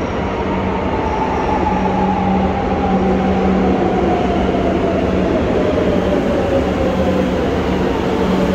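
Madrid Metro train pulling into an underground station. Its running noise grows slightly louder as it nears, and a whine falls steadily in pitch as it slows, over a steady low hum.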